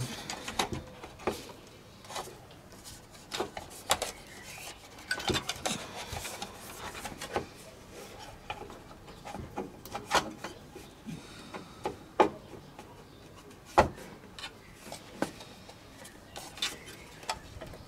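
Parts of a Corsair One PC case being handled and pushed into place: irregular clicks and knocks with some rubbing as a part is worked until it seats properly.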